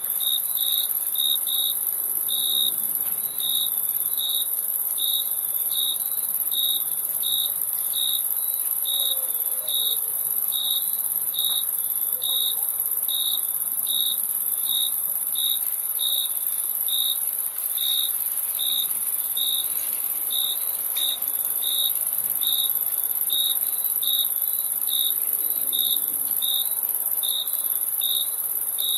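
Crickets chirping: evenly spaced chirps, about three every two seconds, over a continuous high-pitched insect trill.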